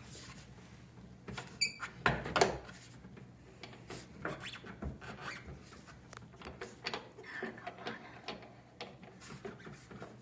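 Handling noise from a ski and a hand sharpening stone: a few knocks about two seconds in, then light, irregular rubbing and scraping as the stone is set to and worked along the ski's steel base edge.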